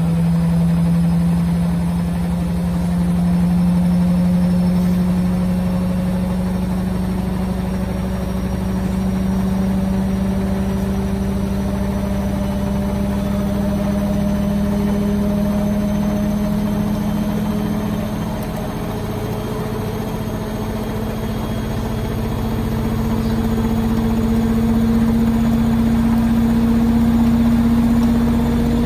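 Hotpoint WM63P washing machine spinning, a steady motor hum that rises slowly in pitch as the drum gathers speed.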